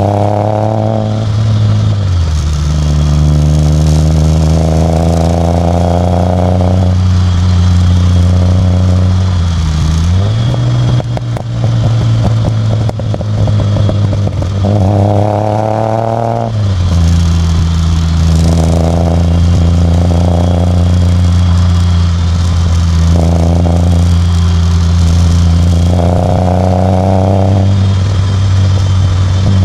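Ford Taunus exhaust heard right at the tailpipe as the car drives: a steady engine note that drops in pitch at several gear changes. About a third of the way in comes a few seconds of crackling and popping backfire on the overrun.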